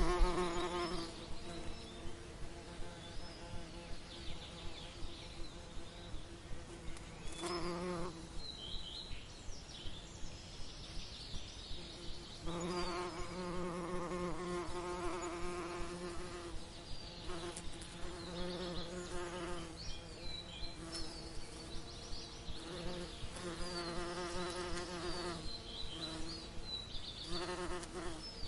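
Honeybees buzzing as they fly close among the flowers, a pitched hum that swells and fades as they come and go. It is strongest right at the start, around eight seconds in, and through most of the second half.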